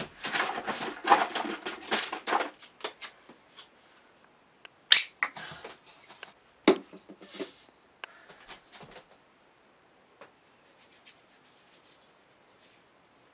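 Rustling and clattering as things are handled, then a short hissing squirt about five seconds in as foam face wash is pumped from a bottle into a hand. A sharp click follows, then faint small rubbing sounds.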